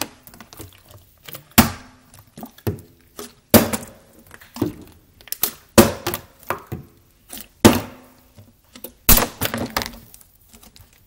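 Part-filled plastic water bottles being flipped and landing on a granite countertop: a series of hollow thuds and clatters, the loudest about every two seconds, some with a short ring as a bottle tips over and rattles on the stone.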